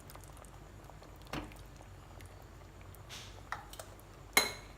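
Kitchen utensils knocking a few times, with a faint knock about a second in and a couple of light ones around three seconds. The loudest is a sharp metallic clink with a brief ring near the end.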